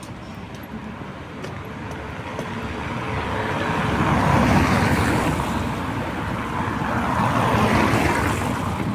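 Cars passing along a rain-wet street, their tyres hissing: the noise swells to a peak about halfway through, eases, swells again near the end as a second one goes by, then fades.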